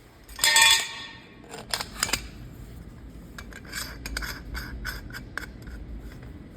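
Vacuum cleaner hose being handled and fitted onto its attachment: a scraping rub about half a second in, a couple of sharp clicks, then a run of light clicks and rustles as the parts are worked together.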